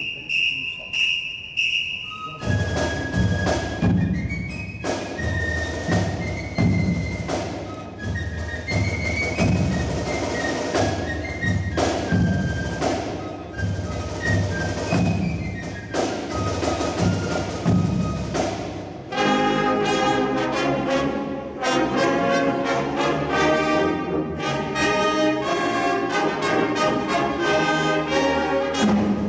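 High school marching band performing its field show: brass, front-ensemble mallet percussion and drums playing, with steady low drum hits. It opens with a high pulsing tone for about two seconds before the full band enters, and the music thickens into sustained brass chords about two-thirds of the way through.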